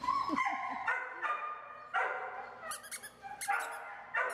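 Dogs barking several times, short sharp barks coming one after another.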